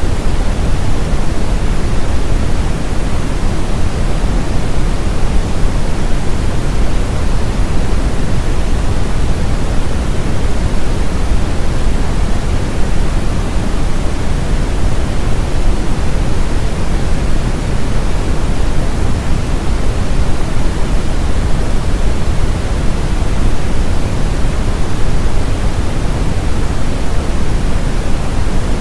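Brown noise: a steady, even rumble-like hiss, strongest in the low end and falling off toward the highs, with no changes or events. It is played as a masking sound for tinnitus.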